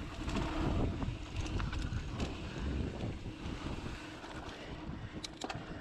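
Mountain bike riding down a dirt singletrack: wind buffeting the microphone over the rumble of the tyres, with the bike rattling over bumps and a few sharp clicks near the end.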